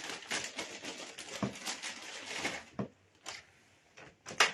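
Hands handling objects: a dense run of rustling and clicking for about the first two and a half seconds, then a few separate sharp clicks, the loudest near the end.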